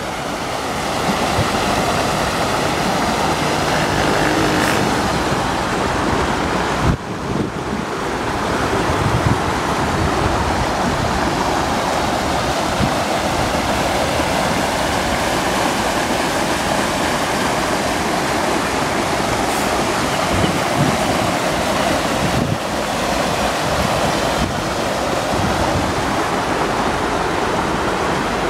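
Muddy floodwater rushing steadily down a river channel in spate, churning over stones and gravel banks, with wind buffeting the microphone.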